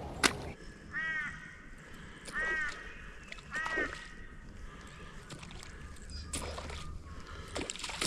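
A bird calls three times, short arched calls about a second and a half apart, with a few scattered clicks and knocks around them.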